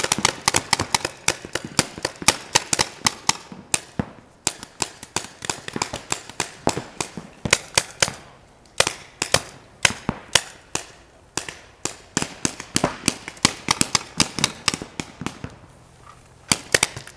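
Paintball markers firing rapid strings of sharp pops, several a second, broken by a few brief lulls.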